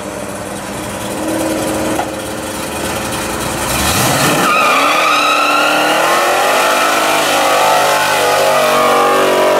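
Classic muscle car doing a burnout: the engine runs low with a brief rev about a second in, then climbs sharply in pitch around four seconds in and holds at high revs as the rear tyres spin and squeal on the pavement.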